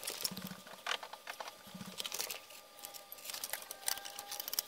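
Scattered clicks, light knocks and metallic clinks of painted cast-iron sickle-grinder parts being handled and fitted together on a workbench, with a faint short ringing tone in the second half.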